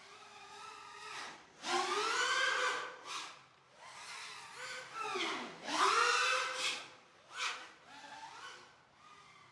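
Five-inch FPV freestyle quadcopter's motors whining in flight, the pitch sweeping up and down as the throttle is punched and cut. The loudest throttle bursts come about two and six seconds in.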